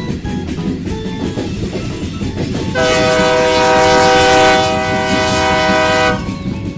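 Train rolling on the rails with a low rumble and clatter, and a train horn sounding one long blast of several notes at once, starting about three seconds in and lasting about three seconds.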